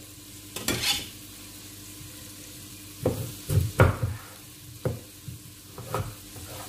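Kitchen knife cutting raw peeled potatoes into dice on a wooden chopping board: a series of short knocks as the blade cuts through to the board, most of them from about three seconds in.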